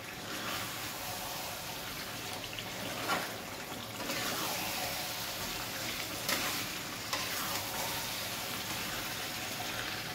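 Chicken pieces in thick masala sizzling as they dry-fry in a kadai, stirred with a flat metal spatula that scrapes and knocks against the pan a few times. This is the last few minutes of frying, as the fry cooks down dry.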